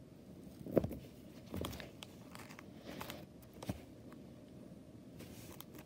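Faint scattered clicks and light rustling of small plastic pieces being handled, about half a dozen over a few seconds.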